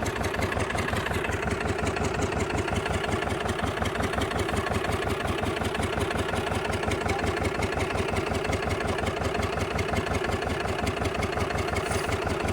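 An engine running steadily at an even speed, with a fast, regular beat.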